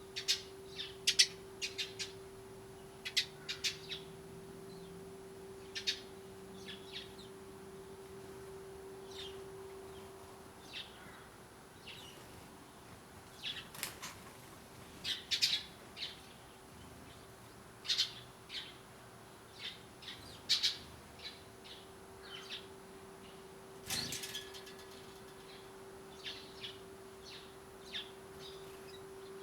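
Eurasian tree sparrows chirping at a bird feeder: short, scattered high chirps, sometimes in quick runs of two or three, over a steady low hum. Late on there is a single sharp knock.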